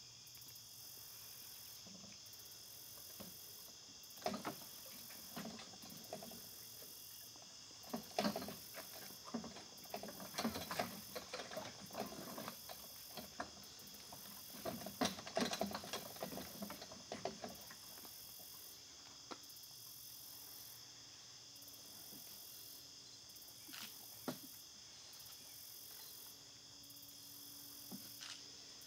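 Steady insect chorus, a high continuous trilling, with a stretch of irregular crunching and scuffing sounds through the middle.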